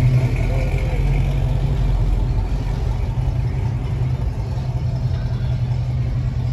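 Low, steady rumble of classic car engines running at slow speed as the cars creep along in a line.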